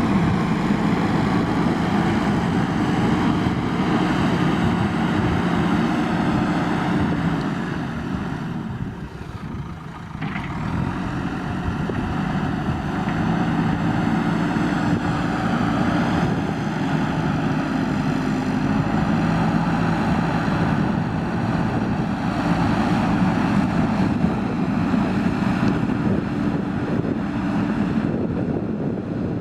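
JCB backhoe loader's diesel engine running while it works mud. Its pitch and loudness shift with the load, and it drops off briefly about nine seconds in before picking up again.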